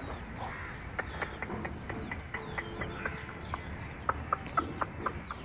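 Chickens clucking: a run of short, quick clucks, with faint high chirps over them.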